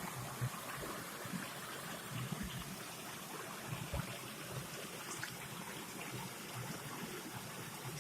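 Steady rush of flowing river water, with a few faint low knocks.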